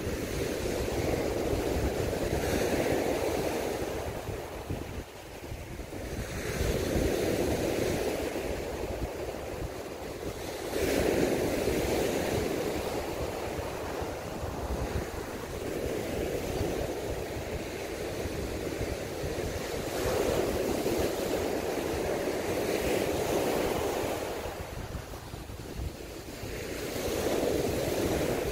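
Surf breaking on a sand beach in a choppy sea, the waves surging in and washing back one after another every few seconds.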